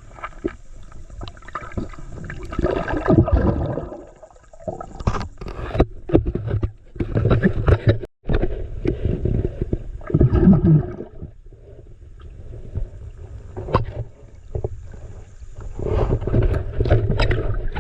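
Water sloshing and gurgling, with irregular knocks and scrapes of handling throughout.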